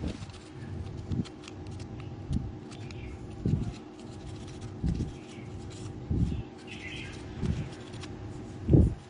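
Small knife shaving a thin bamboo stick in short strokes about a second apart, the stroke near the end the loudest. A few faint bird chirps behind it.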